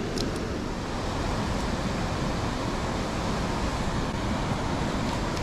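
Steady rushing outdoor background noise with no distinct events, with a couple of faint short ticks just after the start.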